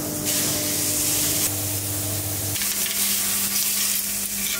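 Meat sizzling on a hot grill grate: burger patties and a caul-fat-wrapped stuffed cut of meat spitting and hissing over the heat.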